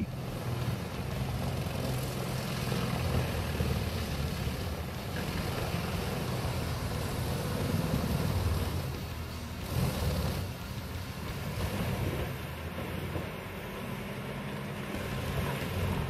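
Vermeer HG6800TX tracked horizontal grinder running under load, its engine droning steadily while logs are fed into the grinding drum, with a brief louder surge about ten seconds in.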